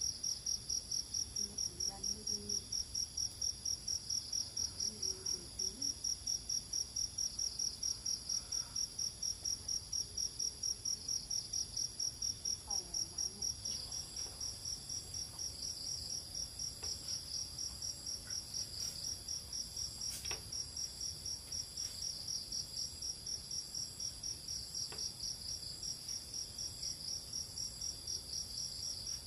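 Crickets chirping in a steady, high-pitched pulsing rhythm of about four chirps a second, over a continuous higher insect hiss.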